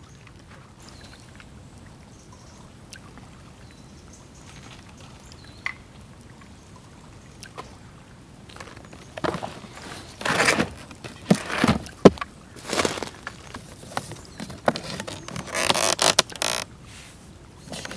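Close handling of camp gear: after a quiet stretch, a string of loud scrapes, rustles and knocks over the second half, with a sharp knock about twelve seconds in. The last burst comes as the wooden lid of a birch-bark pack is lifted.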